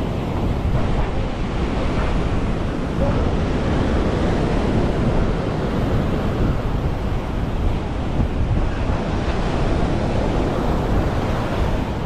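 Ocean surf washing onto a beach, a steady rushing, with wind buffeting the microphone.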